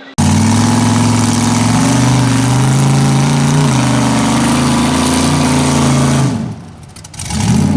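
Side-by-side UTV engine held at high revs, with a steady engine note over a wash of noise. It comes in suddenly and drops away about six seconds in.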